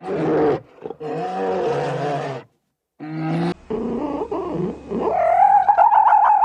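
Animal calls: a few loud, pitched calls broken off by sudden silences, the last higher and held for about two seconds near the end.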